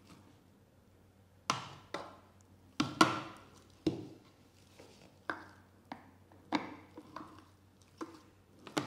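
A metal spoon scooping ground mackerel paste into a food chopper's clear bowl: a string of short taps and scrapes, about one every half-second to second, as the spoon knocks against the bowl and the wet paste drops in.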